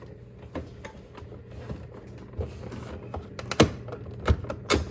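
Plastic ice maker cover being fitted and pushed into place inside a refrigerator: a string of light clicks and knocks, the loudest two near the end.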